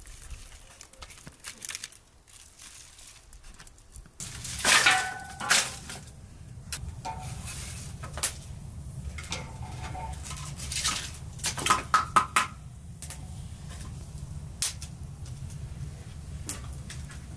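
Dishes and metal utensils clinking and clattering, with clusters of sharp ringing clinks about five and twelve seconds in. A low steady hum starts about four seconds in.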